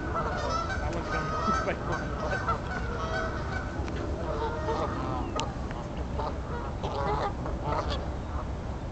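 A flock of Canada geese honking, many calls overlapping for about the first four seconds, then scattered calls. The honking comes from geese squabbling on the pond.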